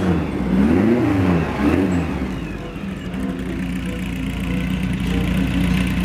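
Classic rally car's engine revved in three quick blips, then settling into a steady idle.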